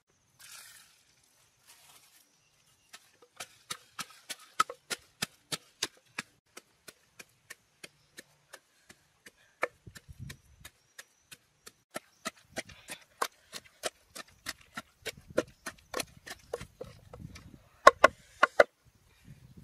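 Steady chopping on wood, about three sharp strokes a second, starting about three seconds in and running on, with a few louder strokes near the end.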